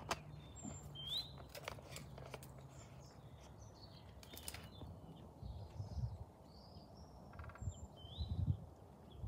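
Small birds chirping, short rising chirps repeated every second or two, over a few sharp clicks and some low thumps.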